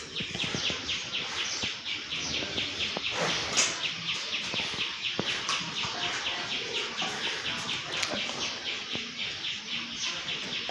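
A bird chirping in a fast, even series of short high chirps, about five a second.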